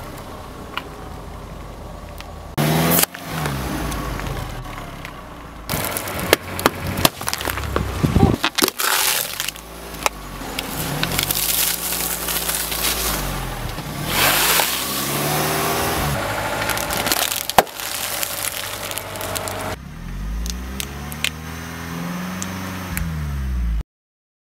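A car tyre rolling slowly over brittle things, dry spaghetti in floral foam and then rice cakes, crushing them with a run of sharp cracks and crunches. A car engine underneath rises and falls in pitch several times. The sound cuts off suddenly near the end.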